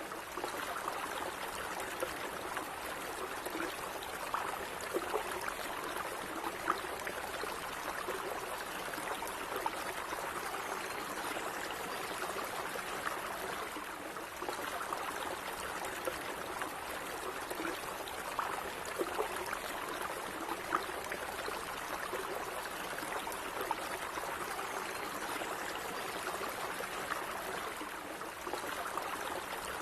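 Shallow stream of water running and bubbling over stones, a steady gentle babble with small gurgles.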